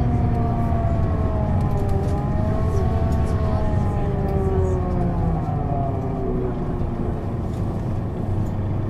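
Scania Citywide LE (CK250UB) city bus running, its diesel engine droning under a whine that rises and falls as the bus changes speed.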